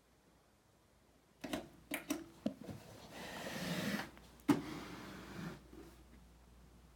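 A Kenwood Basic M2A power amplifier being gripped by hand and turned around on carpet. A few knocks and clicks come first, then a brushing scrape as the chassis slides and turns. A sharp knock about halfway through is the loudest sound, followed by softer rubbing.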